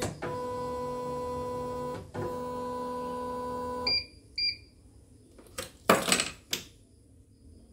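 CNY portable embroidery machine giving a steady buzzing tone for about two seconds, a short break, then the same tone for about two seconds more. Two short beeps from its control panel follow, then a few sharp knocks.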